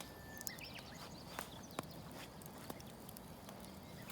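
Wood campfire crackling: faint, irregular sharp pops and clicks, a few each second.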